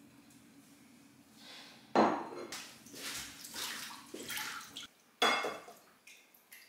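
Dried fish and stockfish being washed by hand in a metal bowl of water: sloshing and splashing, with knocks and clatters against the bowl. The sharp ones come about two seconds in and again about five seconds in.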